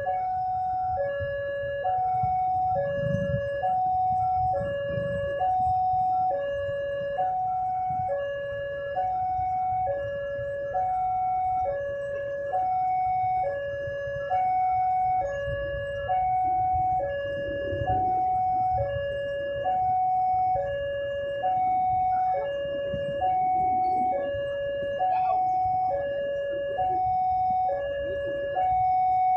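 Railway level-crossing warning alarm sounding a steady two-tone signal, alternating evenly between a higher and a lower tone, each held just under a second: the crossing is closed for an approaching train. A low engine rumble runs underneath.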